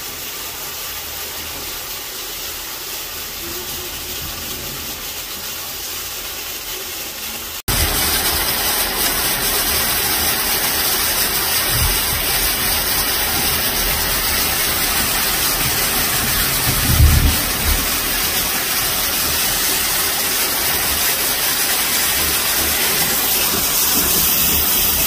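Heavy rain pouring down steadily onto trees and foliage, a dense hiss of a downpour. It jumps suddenly louder about eight seconds in, and a brief low thud comes about seventeen seconds in.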